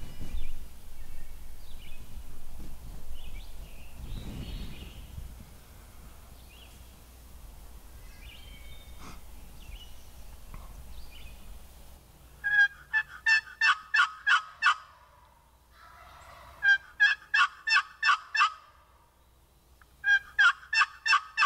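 Wild turkey gobbler gobbling three times in the second half, each gobble a rapid rattling run of about two seconds. Before that there is a low rumble with faint chirps.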